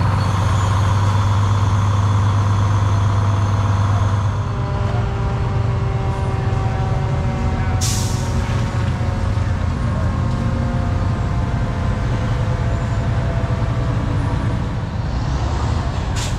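Fire truck engines running steadily as the trucks drive slowly past, with a short air-brake hiss about halfway through and another near the end.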